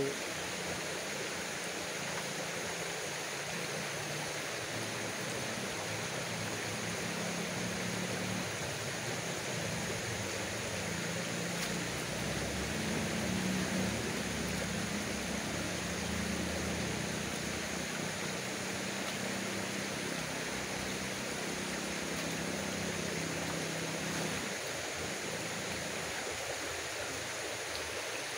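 Steady rushing of a large river, with a low rumble of passing cars and motorbikes on the iron bridge overhead that swells through the middle and fades again.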